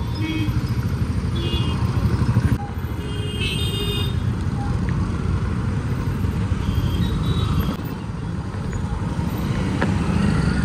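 Street traffic noise: motorcycle and other vehicle engines running with a dense low rumble, broken by a couple of abrupt cuts.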